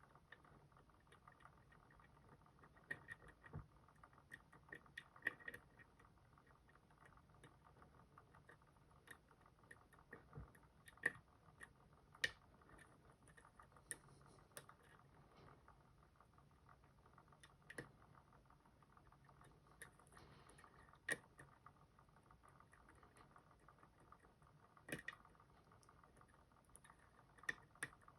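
Faint, scattered clicks and ticks at irregular intervals from a lock pick and tension tool working inside a Robur safety deposit box lock, picking the gin drivers.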